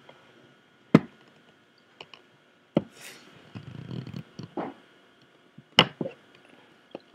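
Adult bald eagle feeding a chick in the nest close to the camera: several sharp knocks, the loudest about a second in and near the end, with a stretch of low rustling in the middle.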